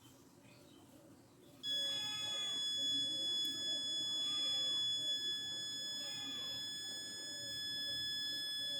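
Buzzer of a transistor alarm circuit sounding a steady high-pitched tone, starting about a second and a half in. Three fainter sounds rise and fall behind it.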